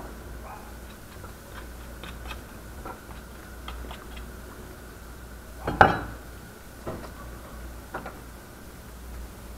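Light clicks and taps of a kitchen knife and hands working raw chicken thighs on a wooden cutting board while deboning them, with one louder knock on the board about six seconds in.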